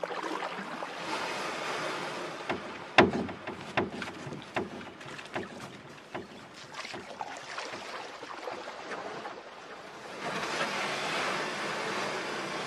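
Noise passage of an experimental industrial track: a rushing hiss scattered with clicks and crackles. A sharp crack comes about three seconds in, and the hiss swells again near the end.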